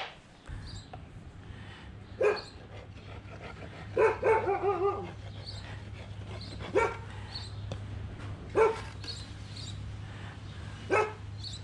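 A dog barking about five times, a couple of seconds apart, with a quick run of yelping barks around four to five seconds in. A steady low hum starts about half a second in and runs underneath.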